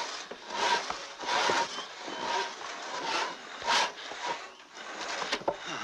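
A crosscut hand saw cutting through a log in steady back-and-forth strokes, one rasping stroke about every three-quarters of a second.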